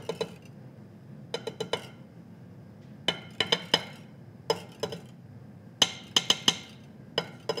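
Wire whisk knocking against a glass mixing bowl: short groups of sharp clinks with pauses between them.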